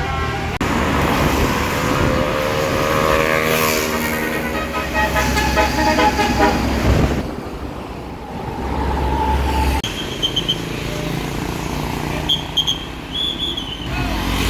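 A tour bus's basuri telolet horn plays a multi-note melody over the bus engine's low running. The tune breaks off about seven seconds in. A single held tone follows, then short high beeps near the end.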